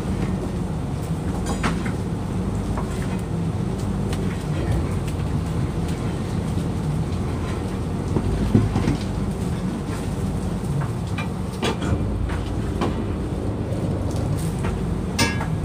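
Steady low drone of a fishing boat's engine running, with scattered small knocks and clicks from lobster net being handled on deck.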